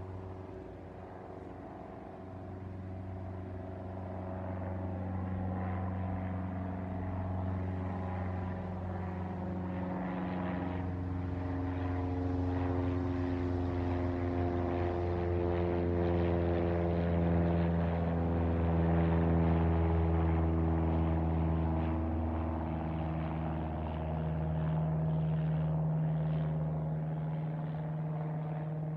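Cessna 172 Skyhawk passing overhead: the steady drone of its piston engine and propeller swells to a peak a little past the middle, then eases off slightly.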